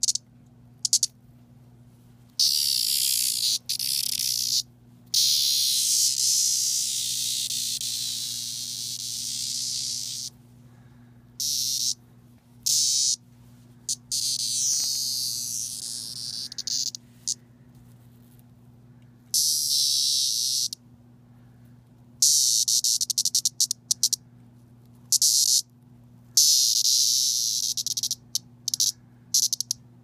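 17-year periodical cicada (Magicicada septendecim) giving its distress buzz when touched: a loud, high, raspy buzz that starts and stops abruptly in about a dozen bursts. The longest runs about five seconds, and several quick short bursts come near the end.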